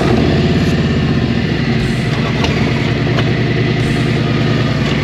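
Motorcycle engines idling steadily at a standstill, heard close up from the rider's bike.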